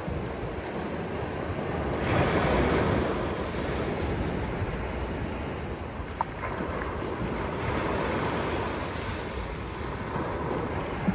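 Small sea waves breaking and washing up over a pebble beach, a continuous surf wash that swells twice as waves run in.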